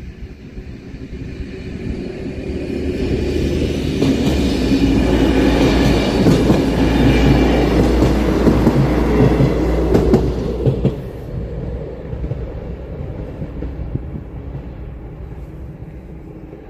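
A passenger train passing over a level crossing: it grows louder over the first few seconds, is loudest through the middle with a few sharp wheel clicks over rail joints, then fades away after about eleven seconds.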